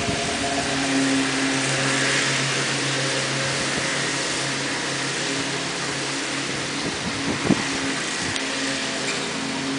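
Steady low mechanical hum of a running motor, with a brief knock about seven and a half seconds in.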